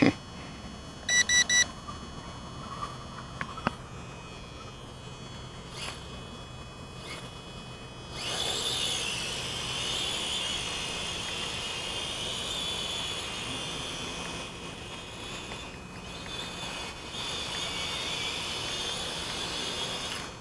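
Three short beeps about a second in, then from about eight seconds a small toy quadcopter's motors and propellers run with a high-pitched, slightly wavering buzz as it flies. The buzz dips briefly about two-thirds through and drops away at the end.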